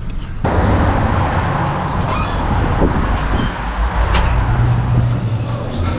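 Engine and road noise of a moving vehicle, a steady low hum under a rushing haze that starts abruptly about half a second in.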